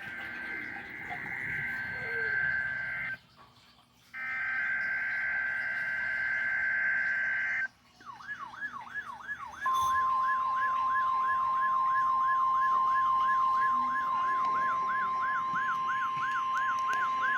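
NOAA Weather Radio alert signal for a weekly test. It opens with two harsh bursts of SAME digital header data tones. Then comes a siren-like tone sweeping about two and a half times a second, joined about 10 s in by the steady 1050 Hz warning alarm tone.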